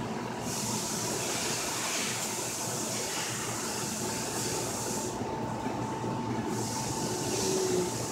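Steady rumble of running machinery with a faint constant hum, and a high hiss that drops out for about a second past the middle.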